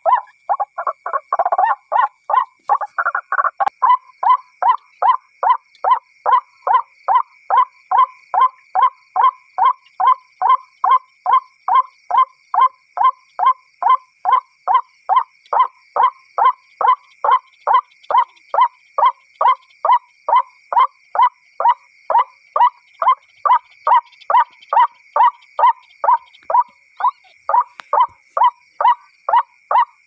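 Watercock call notes repeated about twice a second with machine-like regularity, played on a loop through a small battery-powered loudspeaker as a hunting lure. In the first few seconds the notes come thicker and more jumbled before settling into the even rhythm.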